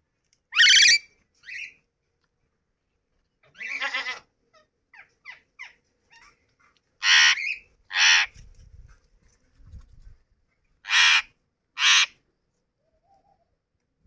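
Yellow (lutino) Indian ringneck parakeet giving short, loud, harsh calls, several in pairs about a second apart, with a few soft chirps in between.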